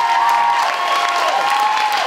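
Theatre audience applauding and cheering, a dense steady clatter of many hands, as the stage music cuts off.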